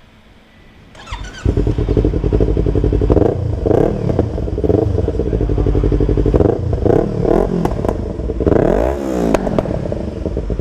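Sport motorcycle fitted with a Tiger aftermarket exhaust, one sized for a 600 cc bike, started on its electric starter: a brief whir, then the engine catches about a second and a half in. It then idles and is revved in short blips, with one longer rev rising and falling near the end. The exhaust makes the note somewhat deeper.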